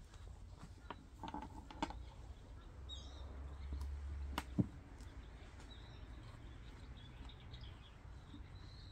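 Small birds chirping now and then, with a few sharp knocks and clicks as a tent's fabric and corner fittings are handled; the loudest knock comes about four and a half seconds in.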